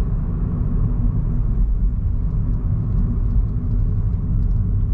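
Steady low rumble of a moving car, engine and road noise as heard inside the cabin.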